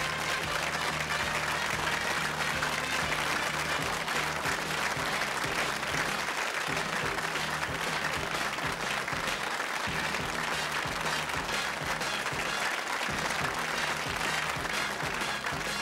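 Studio audience applauding steadily over the sitcom's closing theme music, with the music fading in the second half.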